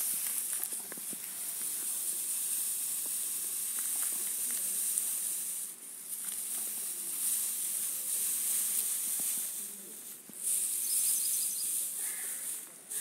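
Dry grass stalks rustling and crackling as bundles are shaken apart and spread in a layer on the ground, a continuous dry hiss that briefly drops off twice.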